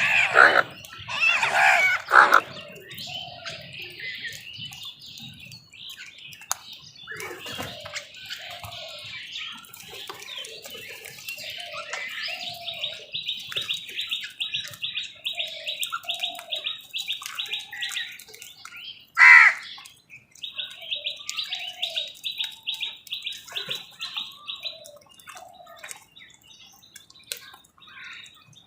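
Crows calling: loud harsh caws in the first couple of seconds and again once about two-thirds of the way through, with long fast high-pitched chattering in between.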